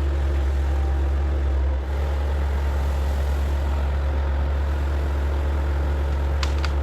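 Excavator's diesel engine running steadily with a low drone, dipping briefly about two seconds in, with two faint clicks near the end.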